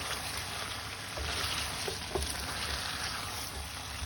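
Chicken masala curry sizzling in its oil in a pan on a gas stove, a steady hiss with a few faint clicks; the water has cooked off and the oil has risen to the top, the sign that the curry is nearly done.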